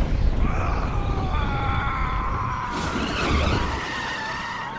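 Motorcycle chase sound effects: a Ducati Scrambler's engine running hard under a dense low rumble, with tyres squealing in a long skid whose pitch slowly falls through the middle of the clip.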